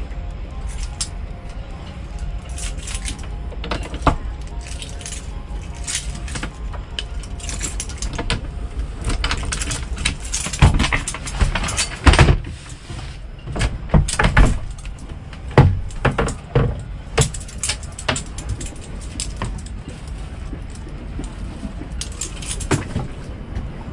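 Knocks, clicks and rattles of gear and fittings being handled and moved about on a small boat, over a steady low rumble. The knocks come thickest and loudest in the middle.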